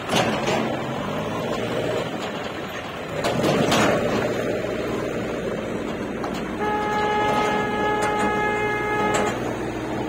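John Deere 5310 tractor's three-cylinder diesel engine running under load as it pulls a trailer through soft, muddy ground, briefly louder near the start and again about three seconds in. A vehicle horn sounds one steady, unbroken blast of nearly three seconds in the second half.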